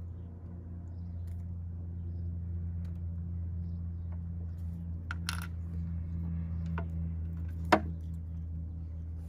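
Small plastic clicks from a snap-shut wire splice connector being worked by hand, with one sharp loud click about three-quarters of the way through, typical of the connector snapping closed onto the wires. A steady low hum runs underneath.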